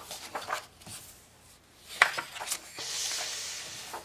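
Paper pages of a colouring book being turned by hand: a few light paper crackles, a sharper snap about two seconds in, then a brief soft swish of the page sliding over.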